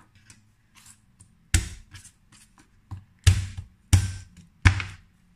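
A kitchen knife knocking sharply on a plastic cutting board about five times as garlic cloves are cut, with faint handling of the cloves before the first knock.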